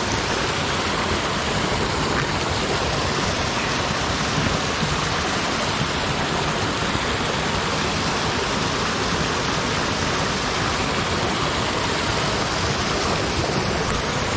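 Creek water flowing steadily, an even rushing noise with no change throughout.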